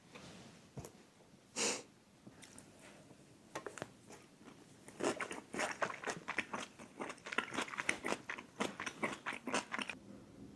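Close-miked eating: a short loud bite just under two seconds in, then rapid crunchy chewing from about five seconds in until near the end.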